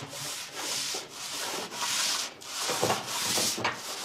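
A wooden tabletop being sanded by hand, the sandpaper rubbed back and forth over the wood in even strokes, about two a second.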